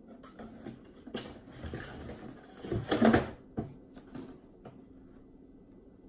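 Handling noise of a Timberland heeled boot being turned in the hands: rustling and light knocks, with a louder cluster of knocks about three seconds in, then quiet room noise.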